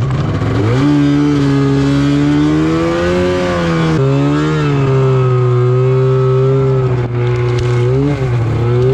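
Snowmobile engine running under throttle as the machine ploughs through deep powder snow. Its pitch climbs about a second in, drops briefly around the middle, then rises again, with a short dip near the end.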